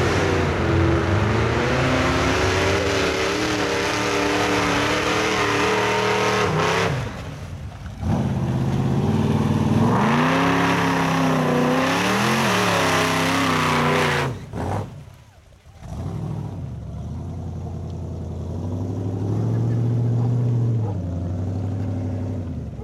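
Lifted 4x4 truck engines revving hard as the trucks churn through deep mud, the pitch climbing and falling with the throttle. The engine sound breaks off briefly about seven seconds in, drops away sharply near fifteen seconds, and then picks up again at lower revs.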